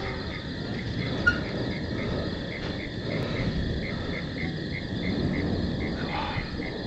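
Crickets chirping in a steady rhythm, about three chirps a second, over a constant high insect trill and a low background rumble of noise.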